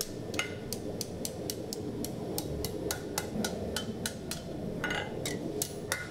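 Blacksmith's hand hammer striking hot steel on an anvil, a quick, even rhythm of about three to four blows a second.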